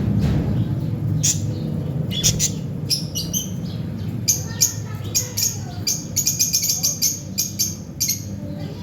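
Budgerigars chirping and chattering in quick, short chirps, which come thickest from about four seconds in, over a steady low background rumble.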